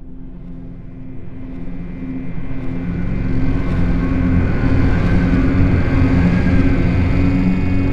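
Cinematic intro sound design: a low, ominous drone and rumble with a few held low tones, swelling steadily louder.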